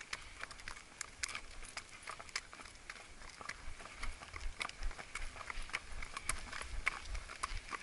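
Hooves of two horses striking a wet paved road: a quick, uneven clatter of sharp hoof strikes, several a second, over a low rumble.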